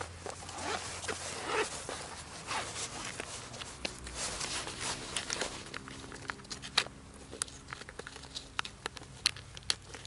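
Fabric case of a folding solar panel charger being handled: a zipper pulled on its pocket, fabric rustling and scraping, and scattered small clicks.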